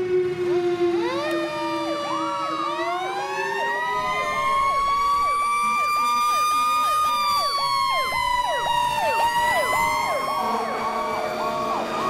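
Fire truck sirens responding. A slow wailing siren winds up to a high pitch about halfway through and begins to fall back near the end. Under it runs a fast electronic yelp, about two to three cycles a second.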